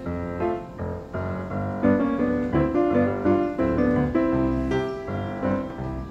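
Upbeat solo piano background music in a light silent-film style, with a steady bass note under changing chords.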